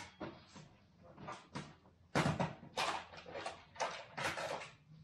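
Irregular clatter and knocks of hand tools being handled on a workbench, about ten short sharp sounds, the loudest about two seconds in.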